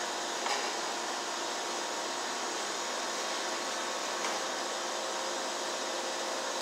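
Steady whooshing hum of a running fan, with a couple of faint clicks from pliers working wires at a plastic electrical box.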